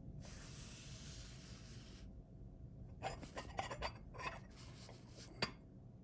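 A ceramic deer-shaped covered dish being turned by hand on a lace doily. It scrapes and rubs for about two seconds, then comes a run of light clicks and taps from the handling, with one sharper tap near the end.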